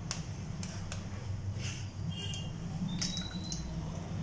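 An egg being cracked against a stainless-steel mixer-grinder jar: a few scattered light clicks and taps over a low steady hum.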